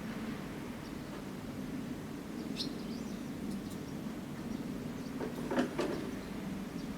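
Distant gunfire from a military training exercise: a short cluster of several reports about five seconds in, over a steady low hum. A few faint bird chirps come earlier.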